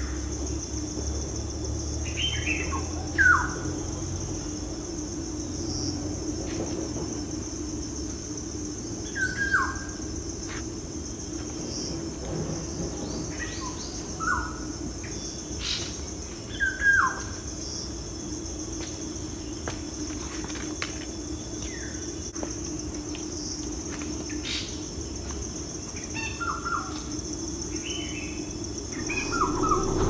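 A bird repeats short calls that fall in pitch, every few seconds, over a steady high-pitched insect chorus.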